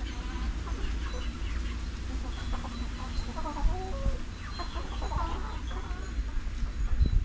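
A flock of chickens clucking and calling at feeding time, many short overlapping calls, over a constant low rumble, with a few knocks near the end.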